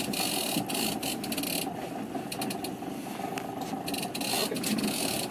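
Fishing reel being cranked in, its gears whirring in spurts that stop and start, over a steady low hum.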